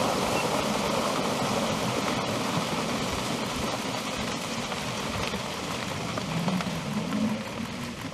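A steady rushing noise, like wind or rain on the microphone, that sets in abruptly just before and holds, with a few faint low moans underneath near the end.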